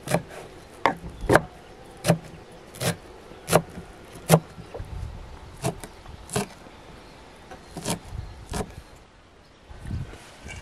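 A large kitchen knife chopping fresh leafy greens on a thick wooden log-slice board. It gives about eleven sharp knocks, roughly one every 0.7 s, with a pause between the two groups. A low thump comes near the end.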